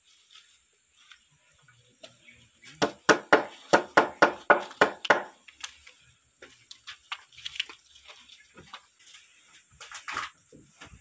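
A hammer striking old wooden planks: a quick run of about ten blows, some four a second, followed by scattered lighter taps and knocks on the wood.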